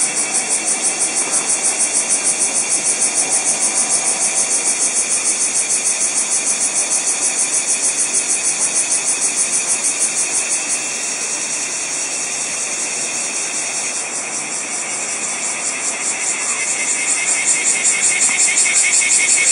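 Loud chorus of cicadas: a rapid pulsing, high-pitched buzz that eases to a steadier hiss in the middle and pulses strongly again near the end.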